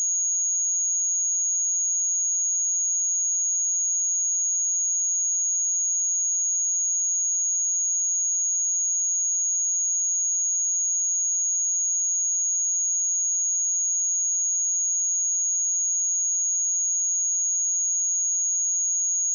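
A pure 6657 Hz sine-wave test tone, one steady high-pitched whistle held at a constant level.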